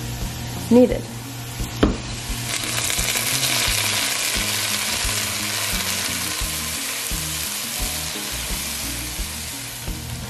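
Diced bell pepper and celery sautéing in hot olive oil in a pot: a steady sizzle that swells about two seconds in and holds. A sharp click comes just before the swell.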